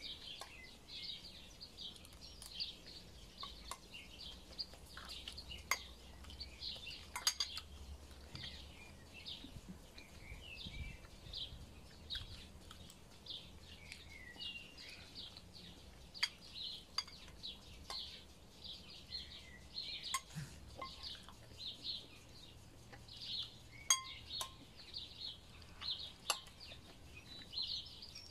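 Metal spoon clicking and scraping against a bowl in a few sharp taps, over a small bird chirping over and over, about twice a second.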